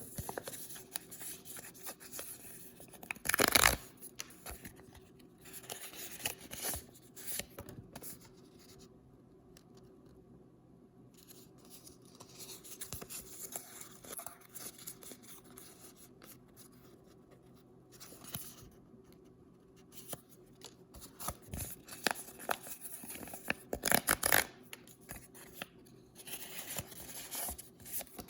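Paper blind-bag packaging being handled and torn open by hand, in bursts of crackly rustling and tearing, with the loudest rips about three seconds in and again near the end.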